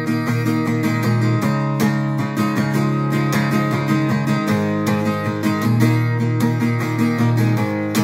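Acoustic guitar strummed in a steady rhythm, an instrumental run of chords with no singing.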